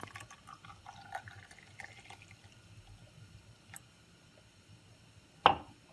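Faint trickling and dripping of the freshly brewed tea, as small scattered liquid sounds in the first couple of seconds. A single sharp knock sounds near the end.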